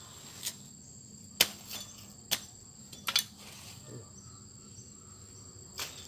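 Large knife chopping through a banana bunch's stalk: about six sharp cuts at uneven intervals. Insects trill steadily in the background.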